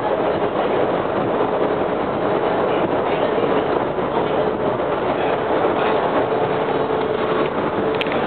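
Ride noise inside a WMATA Breda 4000-series metro railcar running along the track: a steady rumble of wheels on rail under a faint, even whine.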